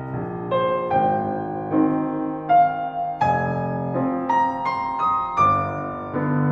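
Solo piano playing a slow, singing melody in triple time over held chords with the sustain pedal down. Notes are struck every half second or so, and the melody rises higher in the middle.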